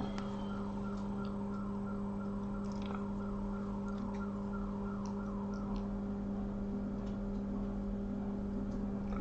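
Steady electrical hum from repair-bench equipment, with a faint repeating whirr over it and a few light clicks of tools.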